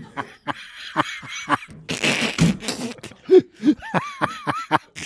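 People laughing and reacting with short non-speech vocal sounds. There is a harsh breathy burst about two seconds in, and a quick run of high-pitched laughs near the end.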